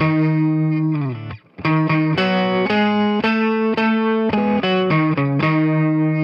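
Electric 12-string guitar strumming ringing chords: the first chord dies away about a second in, then after a brief gap a run of chord changes ends on a chord left to ring and fade.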